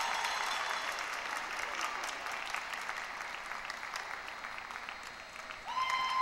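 Audience applauding in an ice rink after a figure skating programme, a patter of many hand claps that slowly fades. Near the end, steady held tones come in over it.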